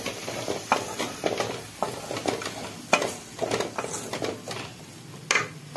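Wooden spatula stirring and scraping chopped vegetables around a metal kadai, irregular clicks and scrapes against the pan with a faint frying sizzle underneath. Two sharper knocks on the pan stand out, about three seconds in and near the end.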